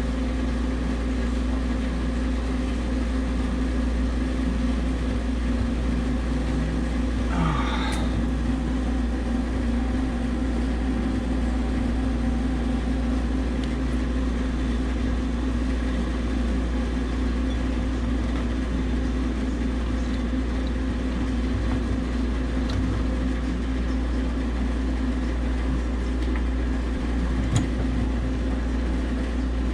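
Steady machinery hum with a constant low drone and a held tone. A short rising scrape comes about eight seconds in, and a light click near the end.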